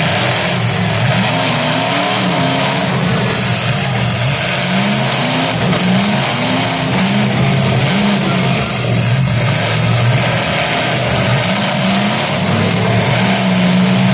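Several demolition derby cars' engines running and revving at once, loud and continuous, their pitches rising and falling against each other.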